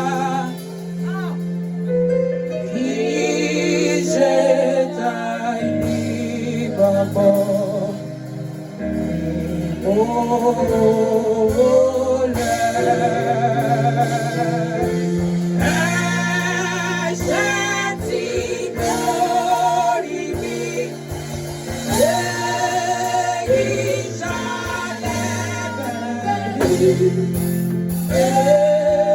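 Gospel music with a voice singing over sustained keyboard chords and bass.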